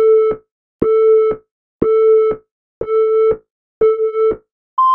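Film-leader countdown beeps: five low electronic beeps, one a second, each about half a second long with a click at its start and end. A higher steady tone starts right at the end.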